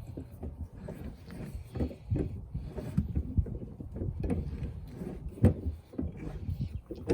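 Nissan Pathfinder's under-floor spare-tire winch being cranked by hand with the jack-handle tool rods. It gives irregular clunks and rattles, with one sharper knock about five seconds in, as the spare is raised.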